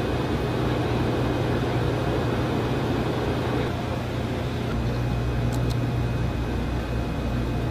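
Steady hum of control-room electronics and ventilation, with a strong low electrical hum under an even rush of air noise. Two faint clicks a little past the middle.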